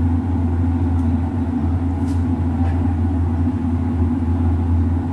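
A steady, loud low droning hum with no break, like a motor or fan running, with a faint short click about two seconds in.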